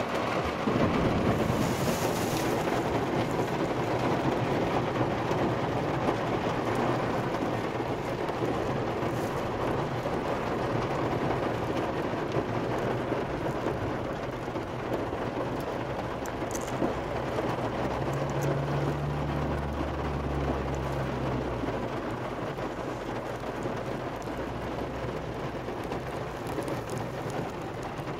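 Heavy rain falling on a parked car's roof and windshield, heard from inside the car as a steady rushing noise. A low hum swells briefly about two-thirds of the way through.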